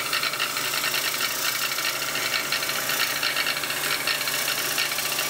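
Electric arbor motor spinning an 80-grit abrasive nylon bristle brush against a steel handsaw blade, a steady scrubbing rasp over the motor's hum as the brush strips surface rust from the blade.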